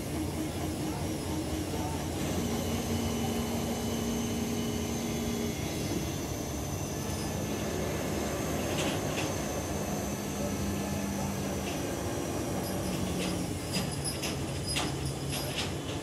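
Liebherr mobile crane's diesel engine running steadily, its pitch shifting a few times as the crane works, with a few sharp clicks near the end.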